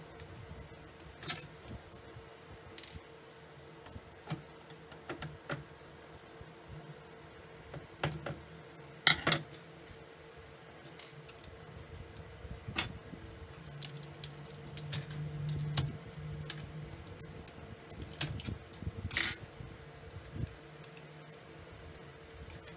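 Scattered clicks and light metallic clanks of the sheet-metal shield and chassis of a Dell S1709WC LCD monitor being handled by hand during disassembly, the loudest knocks about 8 and 9 seconds in and again near 19 seconds. A faint steady hum lies underneath.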